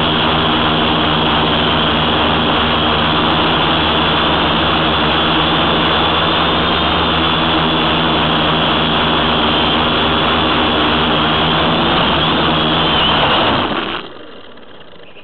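Tricopter's three electric motors and propellers whining steadily at flight power, a loud drone with several steady pitches over a rushing noise; about fourteen seconds in it drops away abruptly to a much quieter sound.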